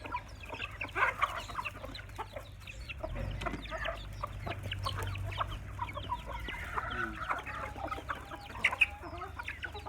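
A flock of chickens clucking while being fed, many short calls overlapping throughout.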